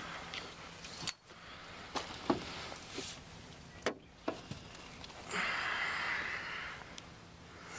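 Scattered sharp knocks and clicks of gear and handling against an aluminum jon boat, then a rushing noise lasting about a second and a half near the end.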